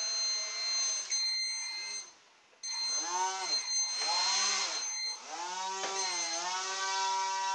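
Tiny 7×20 mm brushed quadcopter motor spinning a small two-blade propeller in a radio-controlled model boat: a high whine that cuts out briefly about two seconds in, then swings up and down in pitch three times as the throttle is blipped, before settling into a steady run. A thin steady high tone from the 2 kHz brushed speed controller sits under it, and there is a light knock about six seconds in as the hull meets the side of the bath.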